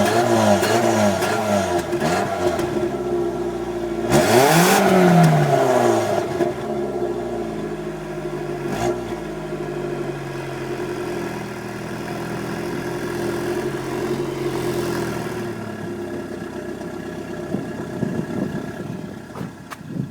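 VW Golf Mk3 1.8-litre 90 hp four-cylinder engine on its stock exhaust, first being blipped quickly, then given one sharp rev about four seconds in that falls back. After that it settles to a steady idle.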